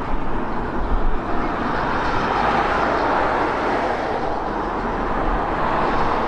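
George England narrow-gauge saddle-tank steam locomotive pulling away with its train, a steady hiss of escaping steam with a low rumble underneath.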